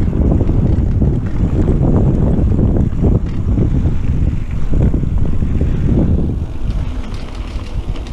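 Wind buffeting the action camera's microphone, with tyre rumble and irregular knocks and rattles from a mountain bike riding down a dirt singletrack; it eases a little near the end.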